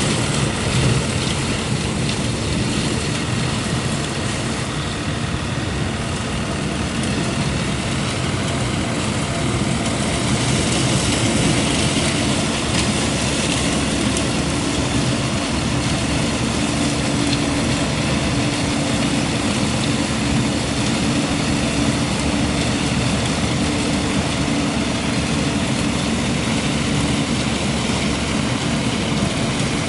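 Compact tractor running steadily while towing a REISER leaf collector working the fallen leaves: a continuous engine drone under an even hiss. A humming note grows stronger from about twelve seconds in and fades a few seconds before the end.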